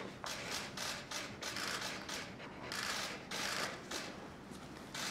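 A pen scratching across paper in a quick run of short strokes as a signature is written, tapering off near the end.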